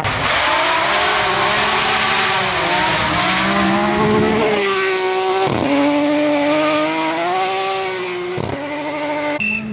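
Rally car engine under hard acceleration, its pitch climbing and then dropping at two quick gear changes, about halfway through and again near the end, over a steady hiss of tyres on gravel.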